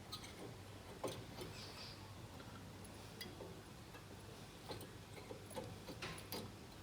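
Faint, scattered metallic clicks and taps as a new front brake pad is worked into its retaining clips in the caliper bracket, over a low steady hum.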